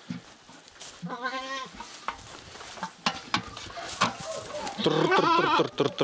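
Goat bleating twice: a short quavering bleat about a second in and a longer, louder one near the end, with scattered knocks in between.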